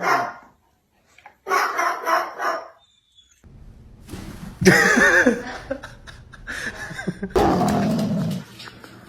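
A dog vocalizing in a few short bursts separated by abrupt cuts.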